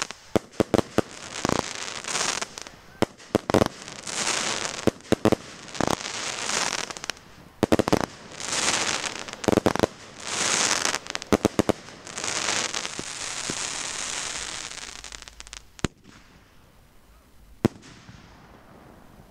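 Consumer firework cake firing a rapid string of shots: sharp bangs, each followed by a hissing, crackling burst, about one a second. The barrage stops about 16 seconds in, leaving a few scattered pops.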